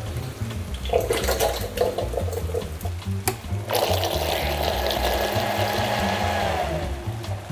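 Canned cannellini beans and their liquid glugging as they are tipped into a blender jug, then a click and the blender running steadily for about three seconds as it purees the beans smooth. Its motor tone drops in pitch as it winds down near the end.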